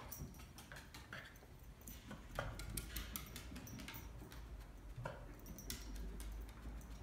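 A small dog's claws clicking irregularly on timber floorboards as it moves about, nose down, searching for a scent.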